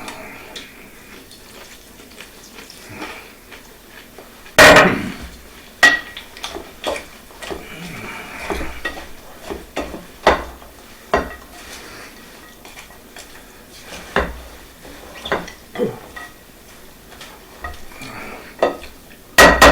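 A utensil clinking, knocking and scraping against a dish as bread stuffing is stirred together with chicken broth, with irregular clicks throughout. The loudest knock comes about four and a half seconds in, and another comes near the end.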